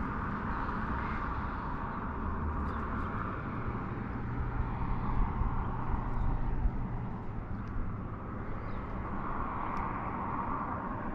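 Wind buffeting the microphone, with an uneven low rumble over a steady outdoor hiss and a few faint ticks.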